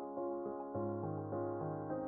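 Soft outro music with keyboard notes; a low bass note joins about three-quarters of a second in.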